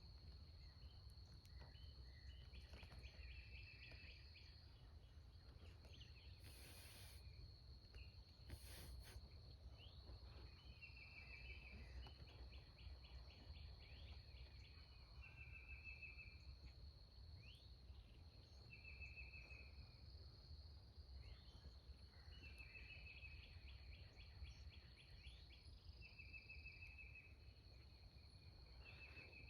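Faint woodland ambience: a songbird repeating a short trilled song every few seconds over a steady high insect drone, with a low rumble underneath.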